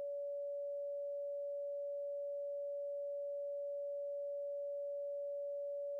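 Thermoacoustic heat engine, a flame-heated glass test tube with steel wool inside, singing one steady, pure tone. The tone shows that the temperature difference across the steel wool has grown large enough to drive a standing sound wave in the tube.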